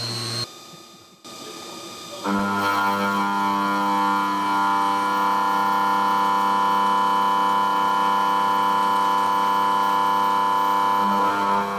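Face mill on an Optimum F100 TC CNC milling machine cutting across a metal block, giving a steady pitched singing tone with many overtones. It starts abruptly a little over two seconds in, after a brief quieter moment, and holds unchanged until just before the end.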